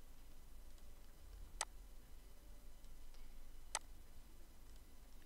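Two sharp computer mouse clicks about two seconds apart, over a faint low hum.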